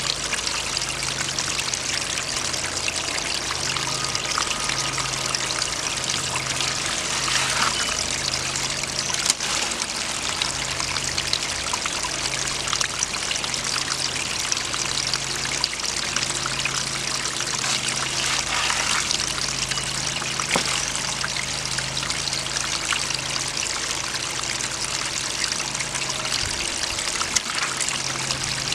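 Water running steadily down a hose-fed homemade gold sluice box, rushing and splashing over the riffles.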